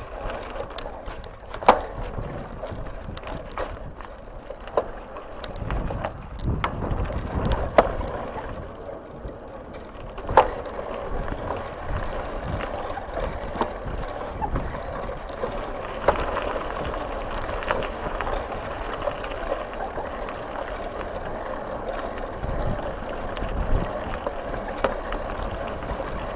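Tyres rolling over a gravel dirt track, with rattling and sharp knocks as the ride goes over bumps; the strongest knocks come about 2, 8 and 10 seconds in.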